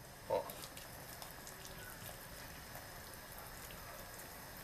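Boiling water poured in a quiet, steady stream into a pot of stew.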